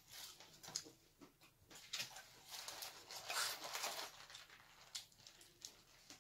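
Close-up eating sounds: crispy fried chicken being bitten and chewed, with scattered small crunches and mouth clicks and a louder crackling stretch around the middle.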